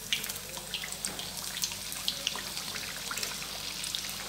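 Wheat-flour and potato snacks deep-frying in hot oil in an iron kadai: a steady sizzle with scattered pops and crackles as the oil bubbles around the patties.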